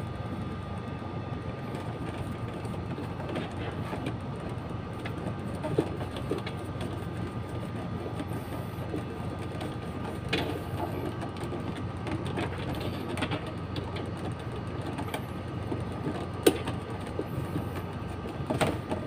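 Steady background hum and hiss with a faint steady tone, broken by a few light clicks and rustles as thin electrical wires are handled and routed on a control panel.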